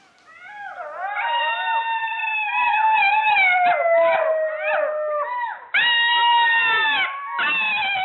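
A group of golden jackals howling together: several high, wavering wails gliding downward over one another, mixed with quick yipping notes. The chorus breaks off briefly about five seconds in and again near the end.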